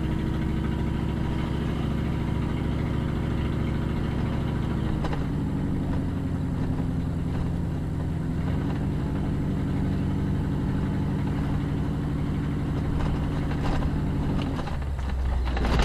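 Car driving slowly, heard from inside the cabin: a steady engine hum that shifts slightly in pitch a couple of times as the speed changes.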